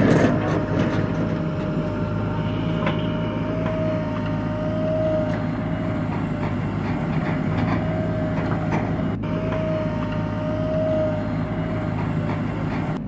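Heavy diesel engine running steadily at a constant speed, with a steady whine above the hum that swells and fades.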